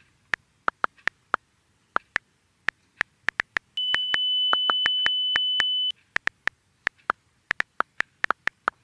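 Smartphone touchscreen keyboard clicking as someone types a text, irregular taps a few per second. In the middle a single steady high beep is held for about two seconds over the typing.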